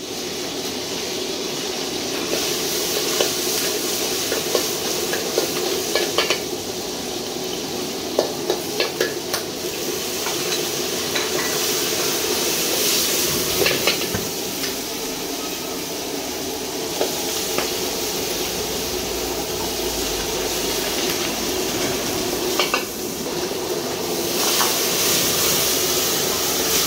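Stir-frying in a wok over a high gas flame: a steady sizzle of food in hot oil, with the metal ladle clanking and scraping against the wok now and then.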